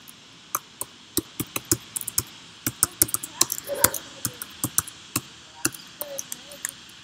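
Computer keyboard keys clicking in quick, irregular runs as code is typed, busiest in the middle.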